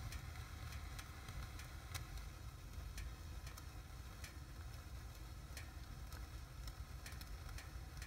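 Firework fountain and fire burning in a fireplace: irregular sharp crackles, one or two a second, over a steady low rumble.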